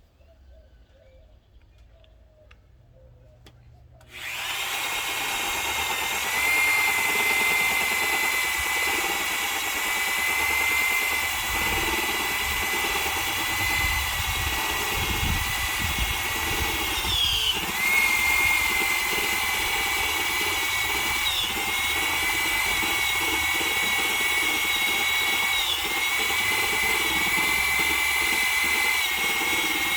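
Electric drill boring the drain hole through a mahogany countertop: the motor starts about four seconds in and runs steadily with a high whine that dips briefly in pitch several times as the cutter bites into the wood.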